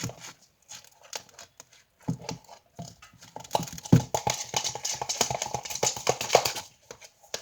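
Freshly forming slime being mixed in a bowl: a dense run of quick wet squelches and sticky clicks, starting about two seconds in and stopping shortly before the end.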